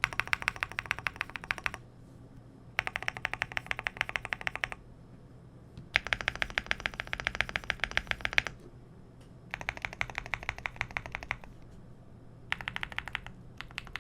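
Cidoo V75 Plus mechanical keyboard with tactile Gateron Quinn switches, PC plate, full foam and PBT keycaps, typed on quickly in five bursts of a second or two each, with short pauses between.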